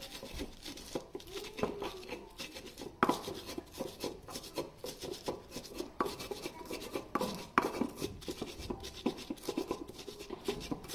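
Stone pestle grinding and crushing bird's-eye chillies, salt and shrimp paste in a stone mortar (cobek): quick gritty scraping and clicking of stone on stone, several strokes a second, with a few louder knocks, the loudest about three seconds in.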